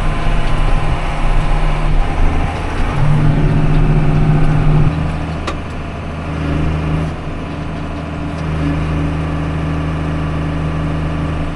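Vehicle engine running steadily under way, its hum dropping a little about five seconds in.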